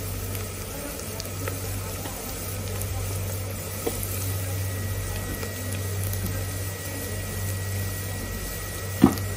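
Rice, shrimp and vegetables boiling in broth in an aluminium stockpot: steady bubbling over a low hum, with one sharp click near the end.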